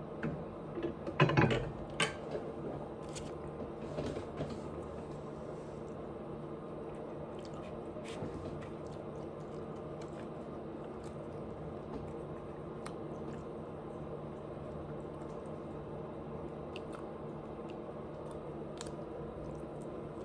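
Close-miked chewing and biting of food, with wet, squishy mouth sounds. A loud cluster of snaps and clicks comes about a second in, then fainter scattered clicks over a steady low hum.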